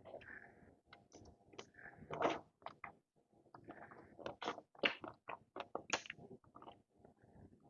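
A person chewing food with wet mouth clicks and smacks in an irregular rhythm, a few of them louder, around two, five and six seconds in.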